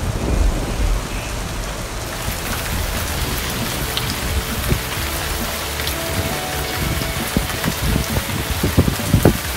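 Rain falling hard and steadily, a dense hiss of drops on pavement and cars, with wind gusting on the microphone in the first second or so.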